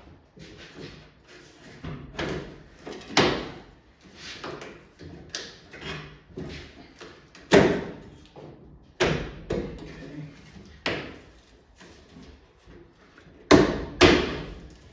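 Repeated knocks and thumps as the windshield-wiper cowl panel is hit and pushed to slide under the stainless trim. The loudest comes about halfway through, with two more close together near the end.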